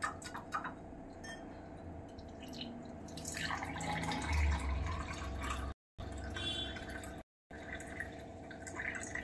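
Aloe vera juice being poured from a steel vessel through a small tea strainer into a glass: liquid trickling and splashing as the glass fills, loudest for a couple of seconds near the middle, with a few light clicks early on.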